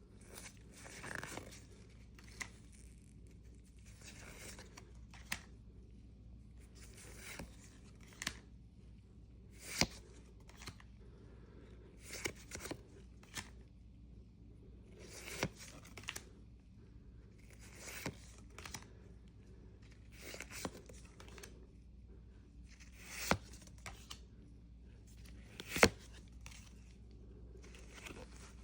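Pokémon card booster pack opened by hand: the foil wrapper tears and crinkles, and the cards slide and flick against each other. About a dozen short swishes and sharp clicks are spread throughout, the sharpest near the end.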